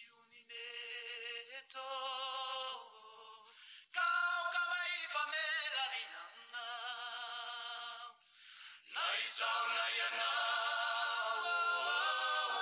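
Background music: a song in a stretch without words, its melody carried by sustained, wavering notes in phrases of a second or two, with short breaks about four and eight seconds in.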